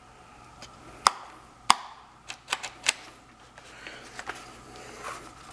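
Hard plastic clicks from a Ryobi gas leaf blower's throttle lever and throttle lock being worked by hand, with the engine not running: two sharp clicks a little past one second in, then a quick run of four lighter clicks, followed by softer handling knocks.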